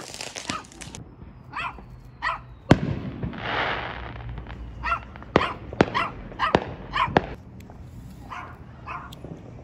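A dog barking again and again while fireworks go off around it with sharp bangs, and a short hiss about three seconds in.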